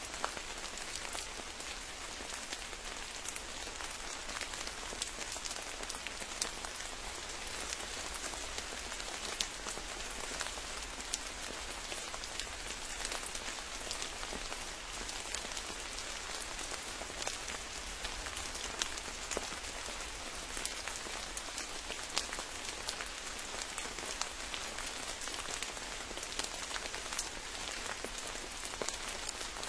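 Steady rain falling, a constant hiss with many sharp individual drops tapping close by throughout.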